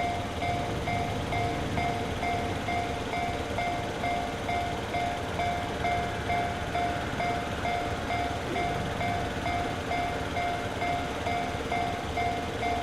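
Japanese railroad crossing warning bell ringing steadily, a repeating two-tone electronic clang a little over twice a second, signalling that a train is approaching and the crossing is closed.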